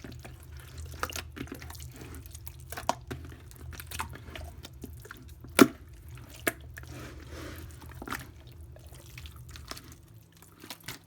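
Wet, sticky squishing and irregular clicks of hands spreading tamarind paste over whole rohu fish and working it into the scored cuts, with one sharp click about halfway through, over a low steady hum that stops near the end.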